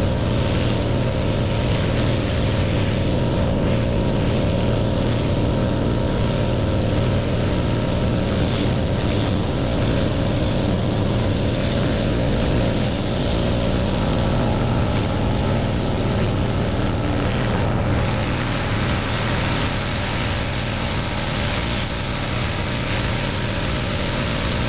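Engine-driven pressure washer running steadily while cleaning concrete, with a constant low engine hum. A brighter spraying hiss grows louder about 18 seconds in.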